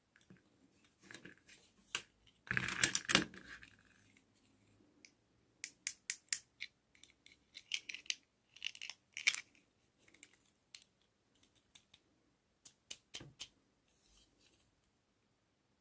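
Hands handling small plastic items close to the microphone: scattered sharp clicks and taps, with a louder burst of crinkling and rustling about three seconds in.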